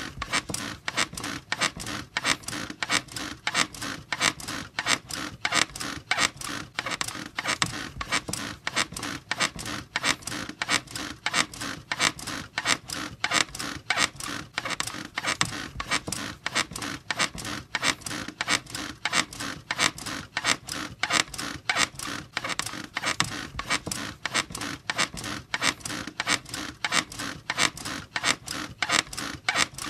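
Squeaking bed, its frame and springs creaking over and over in a steady, fast rhythm.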